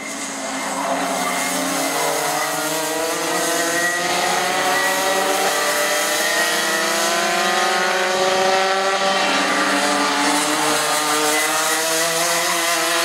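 Several two-stroke racing kart engines at high revs, their overlapping pitches rising as the karts accelerate. The pitches dip briefly about nine seconds in, then climb again.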